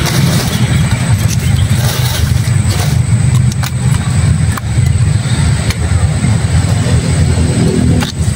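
Steady low rumble of an engine running close by. A few sharp snaps come over it as the tough bracts of a raw banana heart are peeled off by hand.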